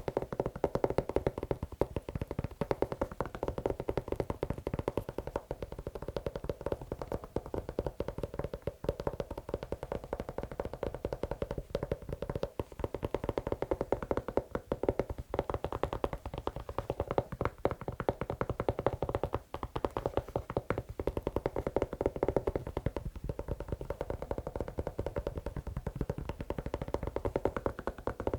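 Fast, continuous tapping and scratching on a shoe, many quick taps a second with uneven loudness.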